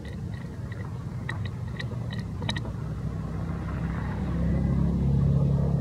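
Low engine rumble of a motor vehicle that grows louder toward the end, with a few faint short clicks between one and two and a half seconds in.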